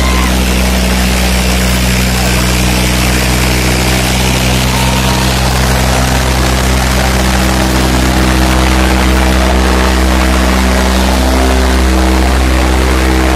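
Farmtrac 60 tractor's diesel engine running steadily at high revs under load, pulling through freshly ploughed soil.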